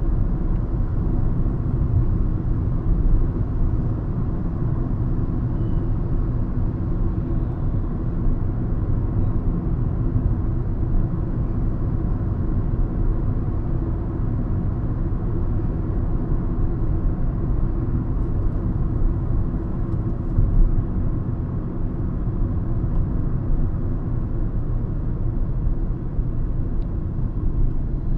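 Hyundai i20 Magna being driven: a steady low rumble of engine and road noise.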